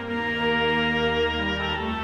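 Background music: sustained bowed strings, violin and cello, playing slow held notes over a steady bass.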